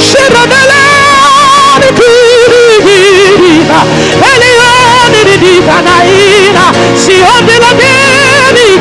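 Live worship music: a singer holds long, wordless melismatic runs with heavy vibrato over held backing chords.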